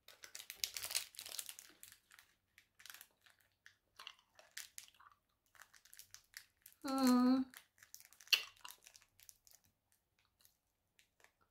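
Plastic candy wrapper crinkling in the hands for about two seconds, then soft scattered mouth clicks of a hard candy being sucked and rolled around the mouth, with a short hummed "mm" about seven seconds in.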